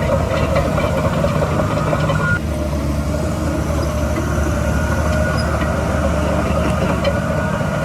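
Heavy diesel construction machinery running steadily, with a brief high tone about two seconds in.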